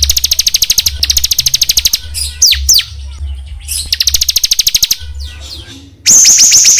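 Small songbird song on a bird-training recording: very fast, high trills of rapidly repeated notes, broken by a few downward-sliding whistled notes. About six seconds in, a louder, different trill cuts in abruptly. A steady low hum lies underneath.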